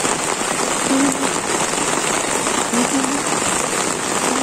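Heavy rain pouring steadily onto trees, grass and a paved road: an even, unbroken hiss of falling water.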